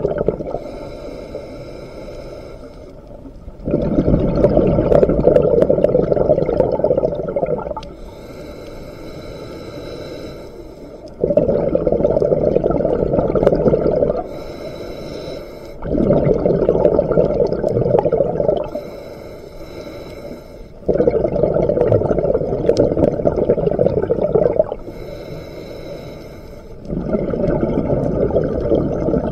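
Scuba diver breathing through a regulator underwater in a slow, even rhythm. Each quiet, hissing inhale of two to three seconds is followed by a longer, loud rumble of exhaled bubbles, about five breaths in all.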